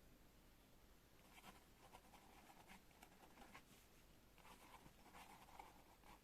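Pen writing on paper: faint, quick scratching strokes that start about a second in and come in short runs.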